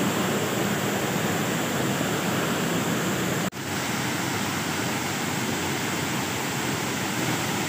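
Steady rush of a waterfall pouring over rocks, cutting out for a split second about three and a half seconds in.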